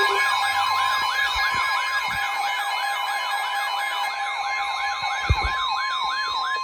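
Electronic emergency alert sound: a steady high alarm tone with a fast yelping siren sweep over it, about three sweeps a second, marking a severe thunderstorm warning. A brief low thump comes about five seconds in.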